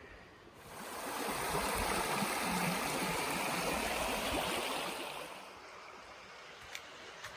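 Rushing water of a creek waterfall: a steady rush that swells up about a second in and eases back to a softer rush after about five seconds.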